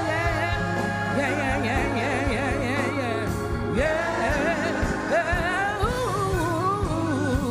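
Gospel singing: a voice with strong vibrato over instrumental accompaniment with a steady sustained bass.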